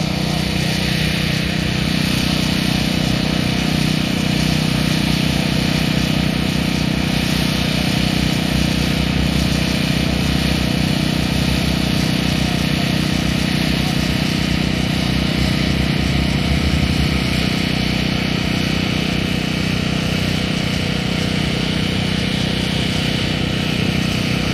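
Propeller engines of two aerobatic planes, an Extra 300S and an MX-2, running at low power as they taxi: a steady, even drone.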